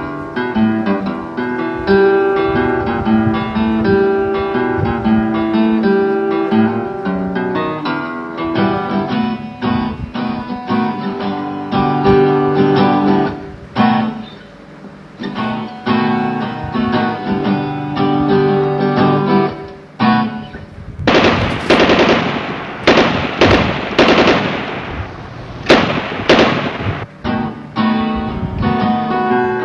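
Acoustic guitar music, plucked and strummed, broken about two-thirds of the way through by roughly six seconds of gunfire: a rapid run of sharp shots from rival gangs in a firefight. The guitar comes back after the shooting.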